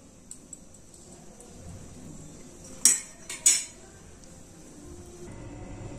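A slotted metal spoon clinking against the metal pan, three sharp clinks close together about three seconds in, with quiet stirring before them.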